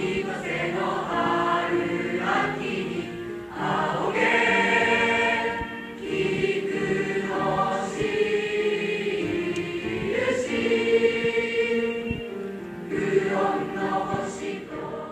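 A junior high school choir of boys and girls singing a song together, with long held notes in phrases that pause briefly every few seconds.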